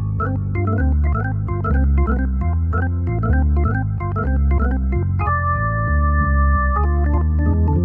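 Nord C1 combo organ with Hammond B-3 style tonewheel sound playing a blues riff: quick runs of right-hand notes over a low bass line, then a chord held from about five seconds in until nearly seven seconds, after which the quick notes resume.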